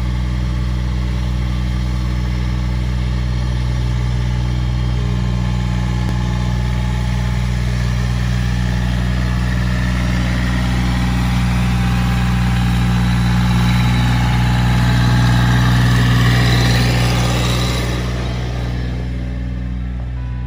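Massey Ferguson compact tractor's diesel engine running steadily as the tractor drives by with its front loader. The engine grows louder as it passes closest, about three-quarters of the way through, then fades as it moves away.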